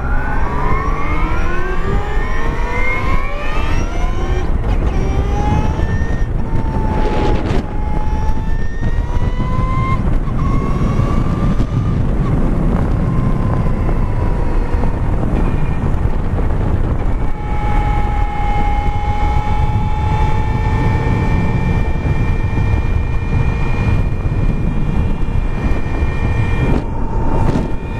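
Electric drive motor of a 2016 Victory Empulse TT motorcycle whining under way, its pitch rising as the bike accelerates over the first few seconds, then holding a near-steady whine at cruising speed. Heavy wind rumble on the camera microphone runs underneath.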